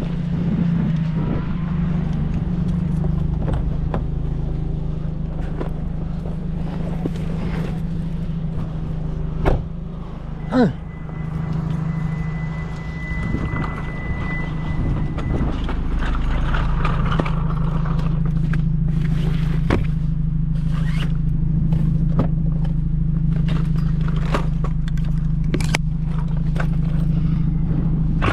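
A vehicle engine idling steadily, with scattered knocks, clicks and scrapes. A thin high tone lasts a few seconds about ten seconds in.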